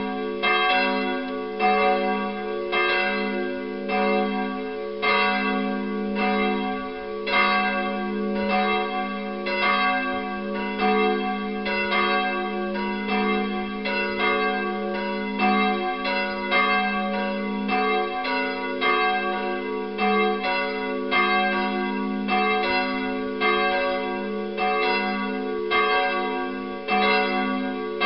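Peal of 19th-century cast-steel church bells made by the Bochumer Verein, swinging and ringing together. Strike follows strike in an uneven overlapping pattern, the tones ringing on between strokes.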